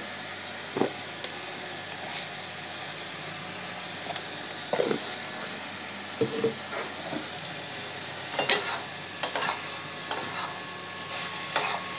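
Snake gourd and prawns frying in a metal kadai over a gas flame, a steady sizzle as the released water cooks off, with scattered scrapes and knocks of a metal spatula against the pan, several of them in the second half as it is stirred.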